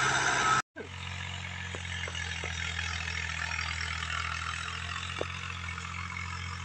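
A tractor engine running under load as it pulls a rotavator, cut off abruptly less than a second in; then a quieter, steady low engine hum with a few faint clicks.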